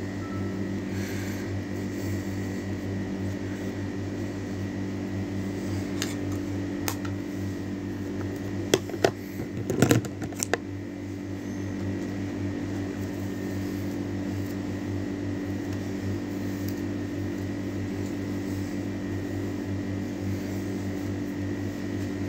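Steady low hum of a running appliance motor, with a few sharp clicks and a cluster of knocks around the middle.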